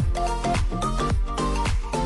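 Background music with a steady beat and a repeating melody.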